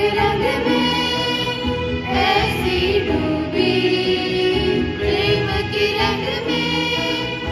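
A group of girls singing a Hindu devotional bhajan together in unison, holding long notes between short gliding phrases.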